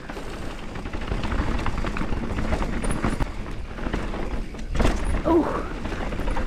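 Mountain bike rattling over brake bumps on a dirt trail descent: a fast, uneven run of knocks from tyres, suspension and frame over low wind rumble on the action camera's microphone, with one heavier thud about five seconds in.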